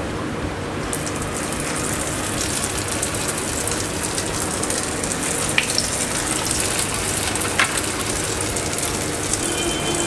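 Soyabean and chana dal kababs sizzling as they are shallow-fried in hot oil in a frying pan. The sizzle grows brighter about a second in as the kababs go into the oil, and a couple of sharp clicks come through partway through.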